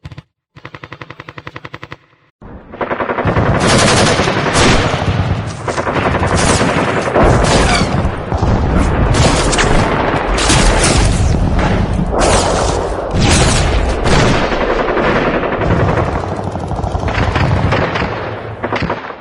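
A short, rapid burst of automatic machine-gun fire, then a sound-effect gun battle: many guns firing at once in a dense, continuous crackle of shots that runs for about sixteen seconds and tails off at the end.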